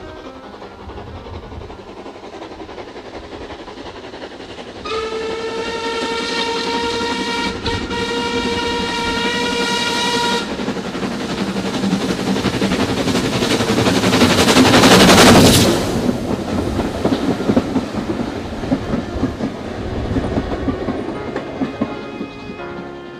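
Isle of Wight steam locomotive W24 Calbourne, an LSWR O2 class 0-4-4 tank engine, blows one long steady whistle of about five seconds as it approaches. The locomotive then works past close by, loudest about fifteen seconds in, and the rumble of the carriages follows.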